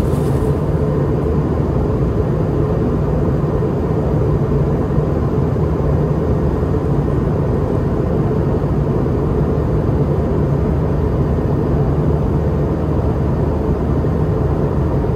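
Steady cabin drone of a Boeing 717-200's rear-mounted Rolls-Royce BR715 turbofans and airflow, heard inside the cabin from a seat right beside the engine on approach. A few constant low hum tones run through the even noise.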